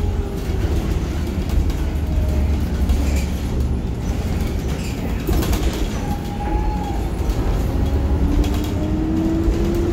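Cabin noise of a New Flyer DE60LF diesel-electric hybrid articulated bus under way: a steady low rumble with a few rattling clicks, and a whine that rises in pitch near the end.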